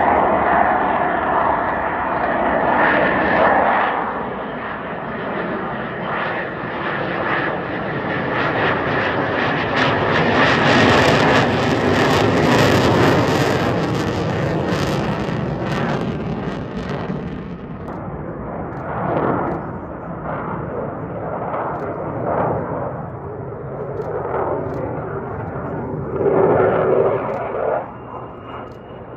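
Jet noise of an F/A-18 Hornet fighter making a display pass. It swells to its loudest and hissiest from about ten to sixteen seconds in, then fades to a duller, more distant rumble.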